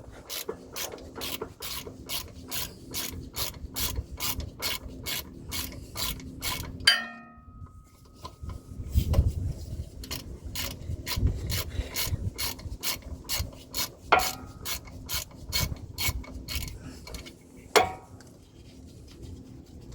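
Hand ratchet clicking steadily, about three to four clicks a second, as it backs out an axle bolt at the front differential. The clicking stops after a metallic clank about seven seconds in, then resumes, with a couple of sharper metal knocks later on.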